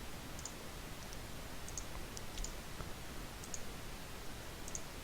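Faint, irregular computer mouse clicks, several in quick pairs, over a steady low hiss.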